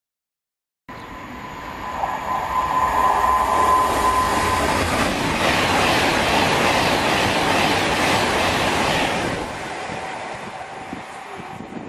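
Virgin Class 390 Pendolino electric train passing along the platform: a steady high tone comes in first, then a loud rush of wheels on rail builds, holds for several seconds and dies away after about nine seconds.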